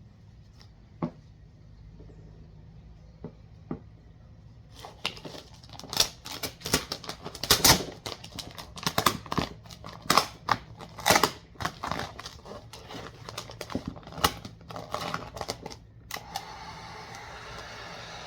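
Vinyl car wrap film crackling and snapping in quick, irregular bursts as it is handled and laid onto a front bumper; the first few seconds hold only a few faint ticks. Near the end a steady hiss sets in.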